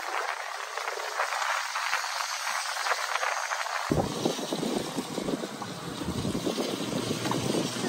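Wind and road noise of a moving car: a steady rushing hiss. The deeper rumble is missing for the first half and comes in about four seconds in.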